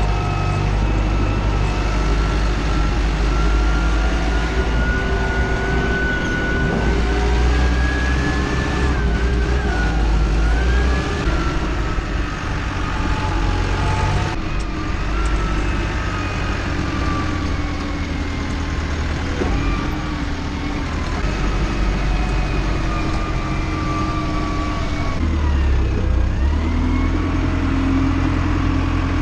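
Tractor engine running hard, with a strong low rumble and a pitch that slowly rises and falls as the revs change.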